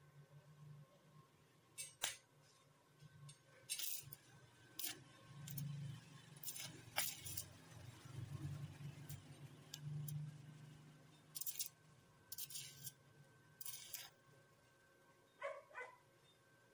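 Scattered short metallic clicks and crackling bursts, about a dozen, some sharp and some lasting up to half a second, from work on a steel pipe tent frame as it is held and welded together.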